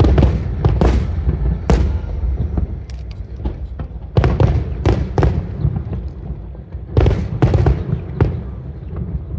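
Aerial fireworks bursting: a dozen or so sharp bangs in clusters, near the start, at about four to five seconds in and at about seven to eight seconds in, over a steady low rumble.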